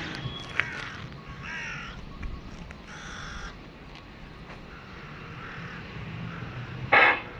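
Crows cawing overhead, a series of short harsh calls, with one much louder call near the end.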